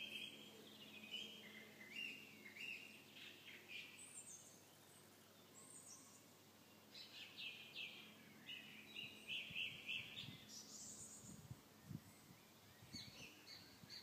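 Faint songbirds singing: short bursts of chirps and trills every second or two, a few rising high, with a lull about six seconds in. A few soft low thumps come near the end.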